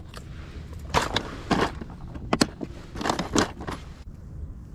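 Hard plastic crankbaits clattering against each other and against a plastic tackle tray as one is picked out: several sharp clacks and rattles, the last about three and a half seconds in.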